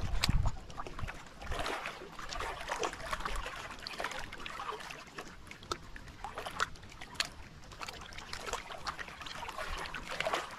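Water lapping and splashing, with many small scattered clicks and a brief low rumble right at the start.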